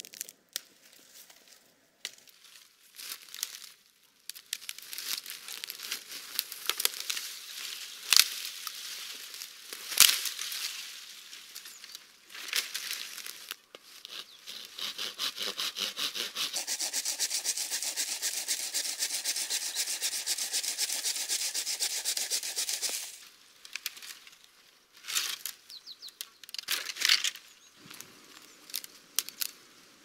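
Dry, leafless brush branches rustling, scraping and snapping as they are handled and pulled, with a couple of sharp cracks about a third of the way in. In the middle comes a long stretch of steady, rapid scraping.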